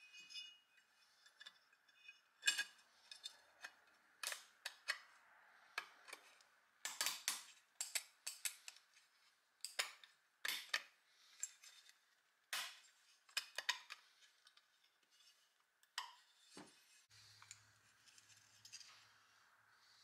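Irregular metallic clicks and clinks as the internal parts of an old Sears Kenmore hair dryer are handled and fitted into its bare metal housing during reassembly.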